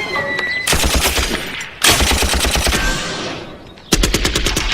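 Machine gun firing in three rapid bursts, the first starting under a second in, as the last of the background music dies away.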